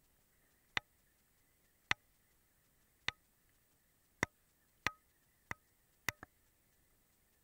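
Spinning fishing reel cranked while retrieving a hooked fish, giving sharp isolated ticks about once a second, two in quick succession near the end.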